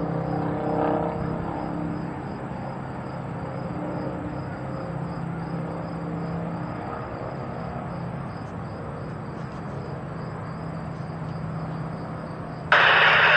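Steady low drone of distant engines rising from the valley below, a hum of several even tones over a faint haze of noise, with a faint high pulsing chirp running through it. Near the end a sudden, much louder rushing noise cuts in.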